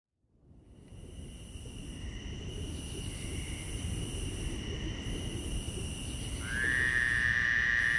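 Opening of a dungeon synth track: an ambient bed of low rumble and steady high hiss fades in out of silence and swells. About six and a half seconds in, a high synth tone slides up and holds.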